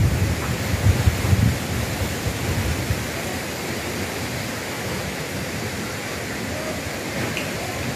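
Steady rushing noise, with a few low thumps in the first second and a half.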